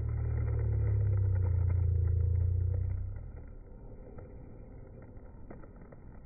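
A motor vehicle passing close by: a low engine rumble that swells, holds, then fades away about three seconds in.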